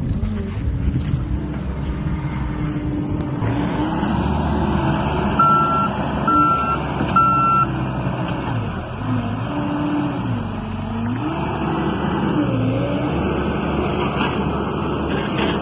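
John Deere 317G skid steer working, its diesel engine rising and falling in pitch as the load changes. About five seconds in, its backup alarm gives three short beeps as it reverses.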